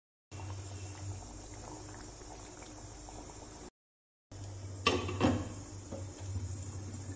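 Potato curry bubbling gently in an aluminium kadhai, a steady simmer with the heat just switched off. About five seconds in a metal lid is set on the pan with two sharp clanks and a lighter knock.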